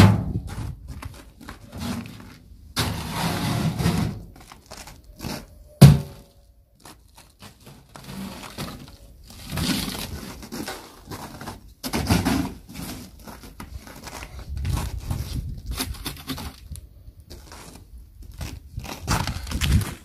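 Irregular knocks, scrapes and crunching as a metal wheelbarrow and a crusted old tub are handled and set down among snow and boards. A sharp knock about six seconds in is the loudest.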